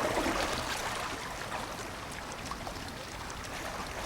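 Small waves lapping against a rocky lakeshore, a steady, even wash of water.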